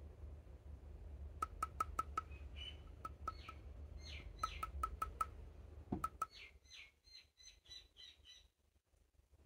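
A small bird chirping: quick runs of sharp clicking notes mixed with short falling whistles, in a few bursts.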